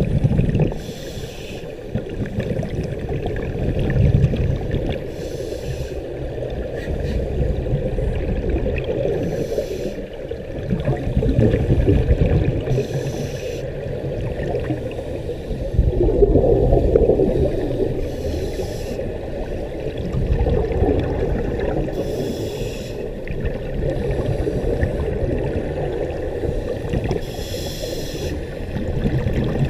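Scuba diver breathing through a regulator underwater: a short hissing inhale about every four seconds, and between them the low bubbling rumble of exhaled air.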